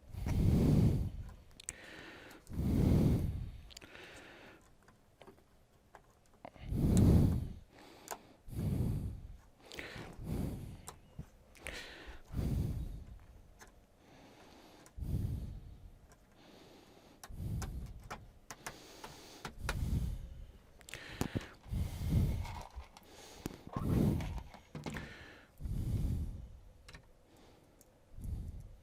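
Handling noise from reassembling a flat-screen TV: repeated dull thuds, rubbing and plastic clicks as the back cover and panel are shifted and fitted, coming irregularly every one to two seconds.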